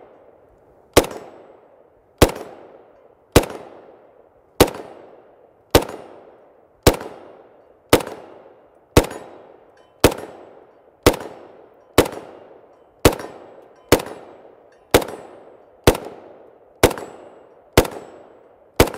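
FN FNC rifle in 5.56×45mm firing semi-automatic, about eighteen shots at a steady pace of roughly one a second, each trailing off in a short echo.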